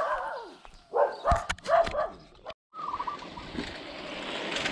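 A few short animal calls that fall in pitch, bunched in the first two seconds, with a couple of sharp clicks among them and a brief high trilling call near the middle and again near the end.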